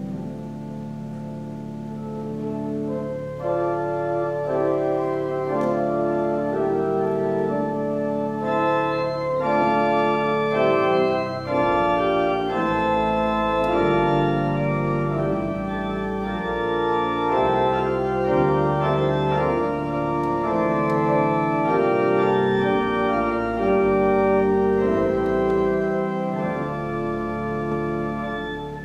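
Church pipe organ playing a slow piece of held chords, growing louder about three and a half seconds in, with deep bass notes joining about twelve seconds in.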